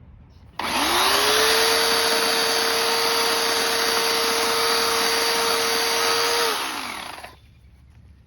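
Chainsaw running: it starts abruptly about half a second in, quickly rises to a steady high speed, holds there for about six seconds, then winds down and stops.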